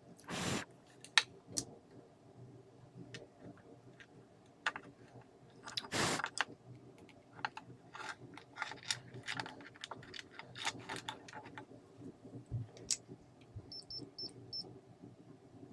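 Handling noise of a repair on a small battery work light: irregular clicks, taps and rustles of small parts and tools, with two louder scraping rustles, one at the start and one about six seconds in. Near the end come four short high beeps on one pitch, in quick succession.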